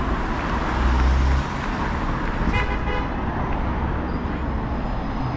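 Street traffic noise: a heavy vehicle's engine rumbles past and fades about a second and a half in, then a short vehicle horn toots once about two and a half seconds in.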